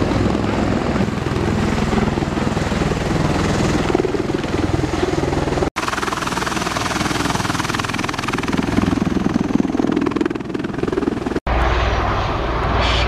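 MV-22 Osprey tiltrotor running, a steady heavy rotor and engine din, broken twice by brief gaps where the footage is cut.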